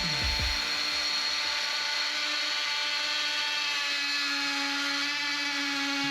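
Oscillating multi-tool running steadily as its blade cuts into a timber door lining, recessing it for a door-lock keep.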